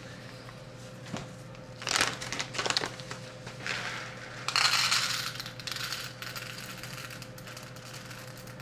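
Whole coffee beans poured from a crinkling paper coffee bag into a paper cup on a scale. The bag rustles first, then the beans rattle into the cup, loudest about halfway, thinning out to a few last beans.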